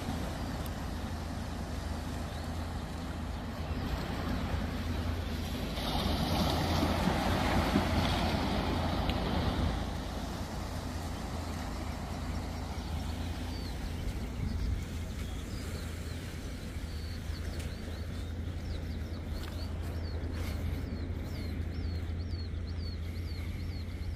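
Wind on the microphone over small waves washing on a sandy shore, swelling louder for a few seconds about a quarter of the way in. In the second half, a run of short high chirps repeats.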